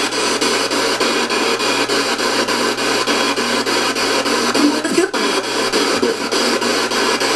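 Spirit box (ghost box) sweeping through radio stations: a loud hiss of radio static chopped into quick, even pulses several times a second.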